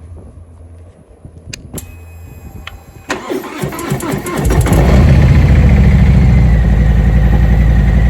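Harley-Davidson V-twin motorcycle being started: a couple of clicks, then about three seconds in the starter cranks, and about a second and a half later the engine catches and runs loud with a steady, even pulse.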